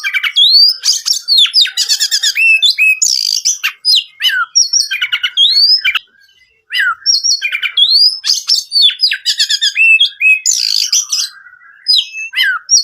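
Oriental magpie-robin singing persistently: a fast run of varied whistled phrases, rising and falling slurs and rapid trills, with one short break about six seconds in.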